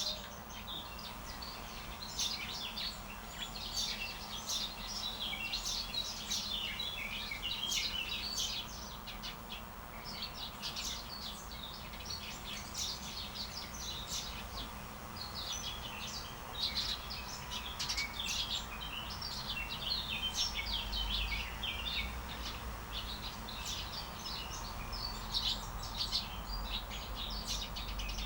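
Several songbirds chirping and twittering continuously, many short overlapping calls, over a steady low background hum.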